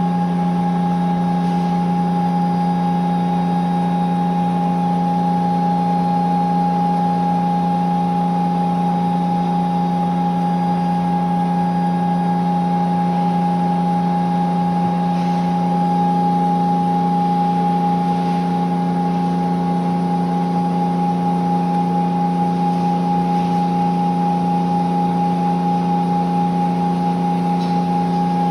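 Okuma CNC grinder running with its grinding wheel turning: a steady low hum with a steady higher whine over it.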